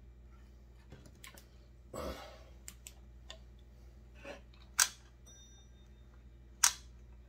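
Light scraping and a short rustle, then two sharp clicks about two seconds apart, as a small pointed tool works at the clogged decompression port in the cylinder of a McCulloch PM 700 chainsaw.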